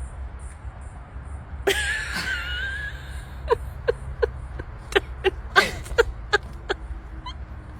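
Dog whining: one long wavering high whine, then a run of short falling whimpers.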